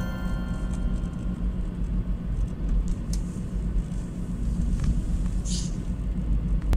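Car driving on the road, heard from inside the cabin: a steady low rumble of engine and tyres. A brief hiss comes about five and a half seconds in, and the sound cuts off suddenly at the end.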